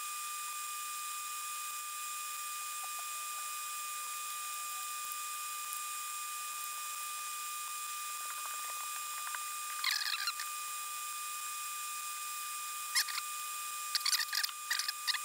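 Wire cutters snipping off excess component leads on the underside of a tube-amp eyelet board: a sharp clip about ten seconds in, another near the end, then a quick run of clips. Under them runs a steady high whine with hiss.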